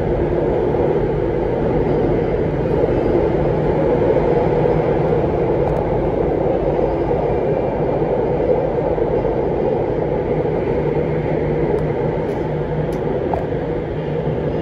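MRT Blue Line metro car running between stations, heard from inside the carriage: a steady rumble with a low hum.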